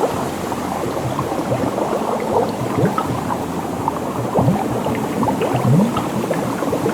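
Water bubbling and gurgling: a steady wash dotted with many short rising blips.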